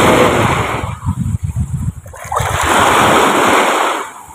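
Shallow seawater washing in two swells of rushing noise, about two seconds apart, with wind buffeting the microphone in between.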